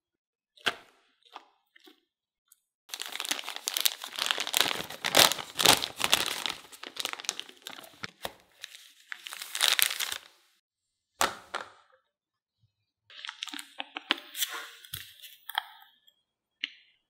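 A disposable plastic piping bag crinkling and rustling for several seconds as it is handled and filled, with a few sharp taps before and after and another short stretch of crinkling near the end.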